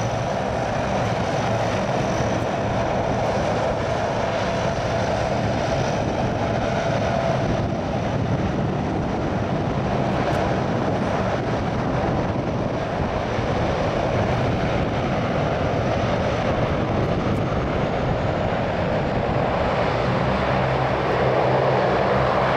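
Distant military aircraft engines running steadily on the airfield, a continuous drone that swells slightly near the end.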